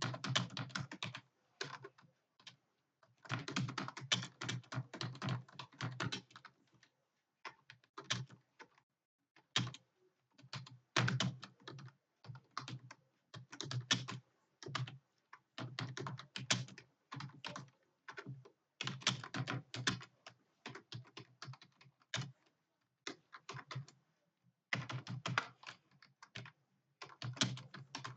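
Computer keyboard typed on quickly: rapid runs of key clicks in flurries of a second or two, broken by short pauses between words.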